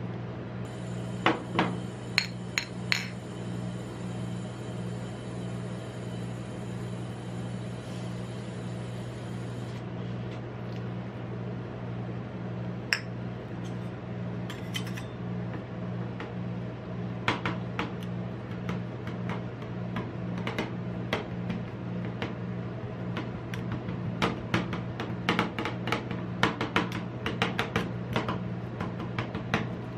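Metal spatulas striking and scraping on the steel plate of a rolled-ice-cream cold pan as raspberries are chopped into the cream. There are a few scattered clacks at first, then quick, frequent strikes through the second half, over a steady low hum.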